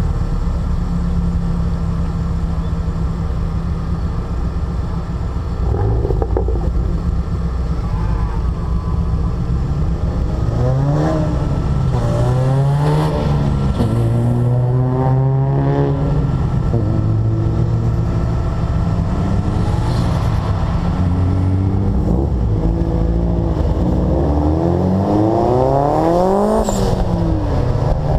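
Car engine at full throttle: a steady low drone at first, then from about a third of the way in the engine pitch climbs hard and drops several times as it revs through the gears, over a constant rumble of road and wind noise.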